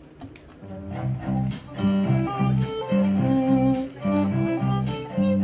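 Live band playing a song's instrumental intro: a repeating low bass riff under a steady drum beat with a sharp hit about once a second. It fades in over the first two seconds.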